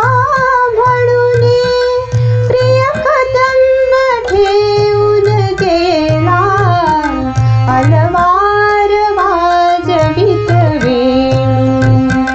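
A woman singing a Marathi devotional song in a melodic line with vibrato, over a steady low drum beat.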